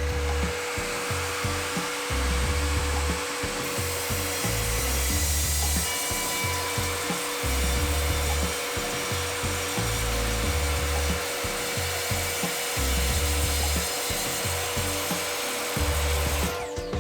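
Evolution R255SMS sliding mitre saw running with its multi-purpose multi-blade, cutting through a thick glued-up hardwood board of oak, sapele, cherry and ash; the cutting sound stops shortly before the end.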